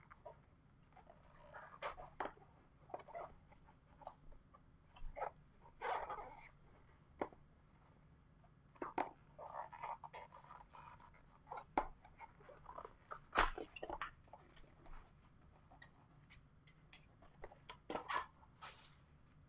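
Trading card packaging being opened by hand: short bursts of crinkling wrapper and cardboard rustling, with scattered taps and clicks.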